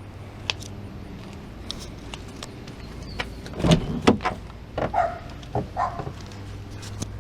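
2003 Dodge Caravan's 3.3 L V6 idling steadily with engine flush mixed into its oil. Over it come several knocks and clunks, the loudest about four seconds in, like a car door being opened and shut.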